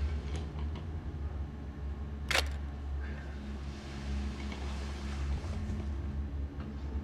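A single camera shutter click about two seconds in, over a steady low hum.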